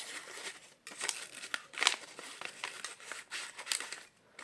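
Paper being handled: a post-it note rustling and crinkling, with short clicks and taps, one louder about two seconds in.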